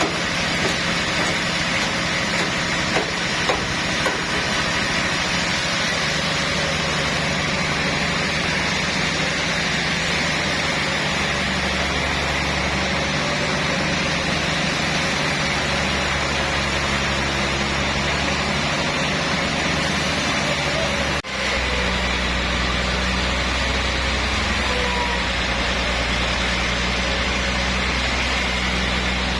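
Sawmill machinery running steadily with an engine-like hum, with a brief break about 21 seconds in.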